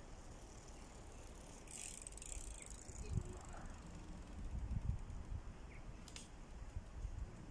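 A bicycle rolls close past and comes to a stop, with a passing hiss from its tyres and freewheel, a few low knocks, and one sharp click near the end as the rider gets off.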